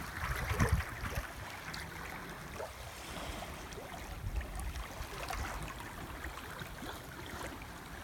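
Water splashing and rushing along a sailboat's hull as it sails in light wind. Wind buffets the microphone in a few low gusts, the strongest about half a second in.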